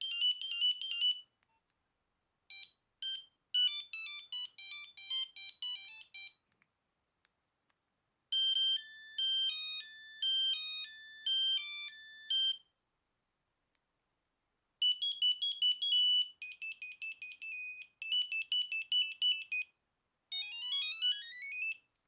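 Nokia 8310 monophonic ringtones previewed one after another through the phone's small speaker: five short high-pitched beeping melodies, each a second to a few seconds long, with silent gaps between them. The last tune, near the end, climbs steadily in pitch.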